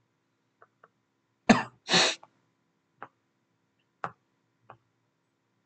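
A person coughs: two harsh bursts in quick succession about a second and a half in. A few faint short clicks sound before and after.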